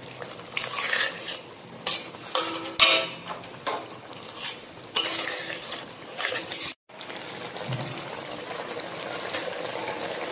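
A metal spatula scraping and clattering against a metal kadai as fish curry in poppy-seed gravy is stirred. After a brief cut about two-thirds of the way in, a steady hiss follows from the simmering gravy.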